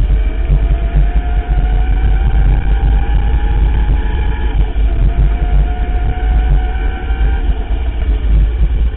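Electric bike's motor whining, its pitch climbing slowly as the bike gathers speed, dropping back about four and a half seconds in and climbing again. Under it, heavy wind rumble on the bike-mounted camera and bumps from the path.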